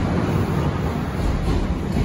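Odakyu electric commuter train running past close by as it pulls out, a steady rumble of wheels on rail and running gear as the last car goes by.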